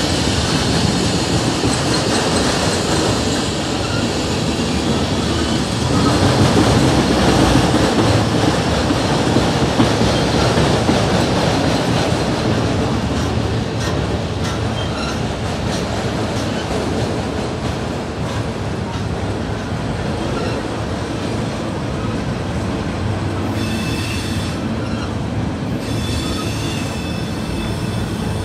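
Freight train cars rolling slowly over a grade crossing: a steady rumble of steel wheels on rail with clicking over the rail joints, loudest a few seconds in. Thin high wheel squeal comes in near the end.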